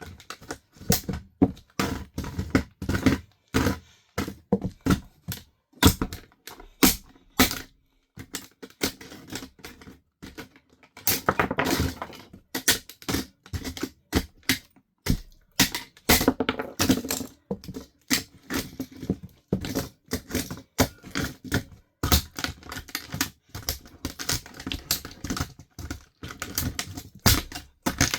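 Plastic of a toy RC car cracking and snapping under high heels: irregular sharp clicks and cracks, bunching into denser crunching runs a few times.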